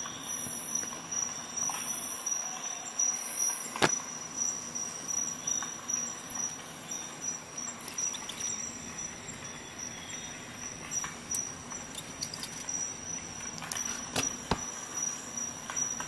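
Small metal parts being handled: scattered sharp clicks and light scraping over a steady hiss with a thin high whine, the clearest click about four seconds in and a cluster late on.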